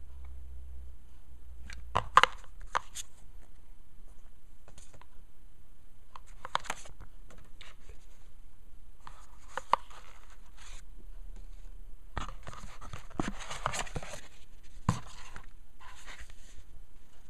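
Paper leaflets, cards and a manual being handled and leafed through in a cardboard box: scattered rustles and sharp clicks, with a longer stretch of rustling near the end.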